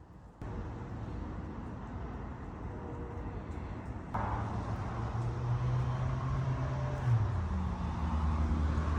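A motor running steadily, getting louder about four seconds in; its low hum drops in pitch about seven seconds in.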